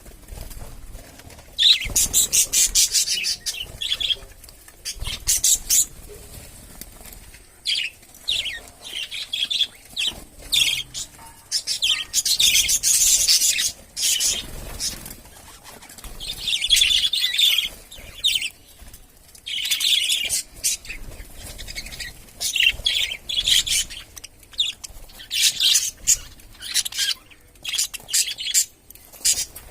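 Pet budgerigars chirping and chattering in repeated bursts of a second or two, with short pauses between them.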